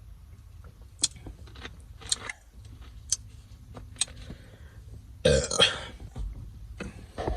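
A woman burps once, loud and short, about five seconds in. It comes after a few sharp mouth clicks.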